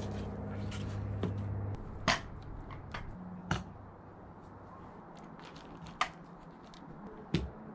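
Coilover shock absorbers being lifted from their box and set down during unpacking, giving several sharp knocks a second or two apart. A steady low hum underneath stops about two seconds in.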